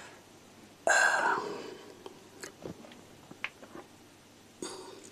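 Close-miked eating: a sudden loud wet bite into sauced chicken about a second in, fading over a moment, then a few soft chewing clicks, and a brief crockery sound near the end as a bowl is handled.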